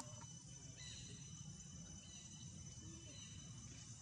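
Faint forest ambience: a steady insect drone of thin high tones over a low rumble, with a brief click at the very start and a few faint short chirps.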